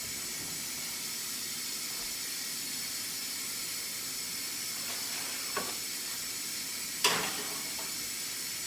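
Steady sizzling hiss from a hot pan of barbecue chicken, with a sharp clack about seven seconds in.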